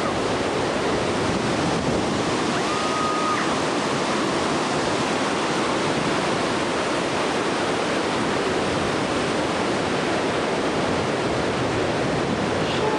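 Steady, loud rush of water from Yosemite Falls and the creek below it, in torrential late-spring flow.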